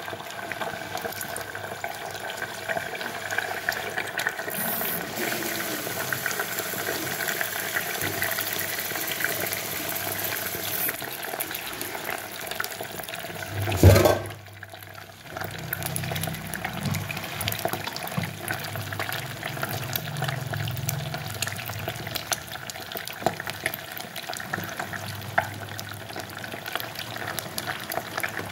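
A fried egg sizzling and crackling in a deep layer of hot oil, the white puffing up into large blisters. About halfway through there is one sharp, loud knock.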